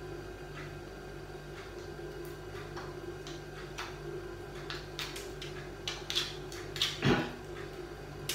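Hard shell of a cooked lobster tail clicking and scraping as the muck is cleaned out of it, sparse at first and busier from about five seconds in, with a louder knock near the end. A steady low hum runs underneath.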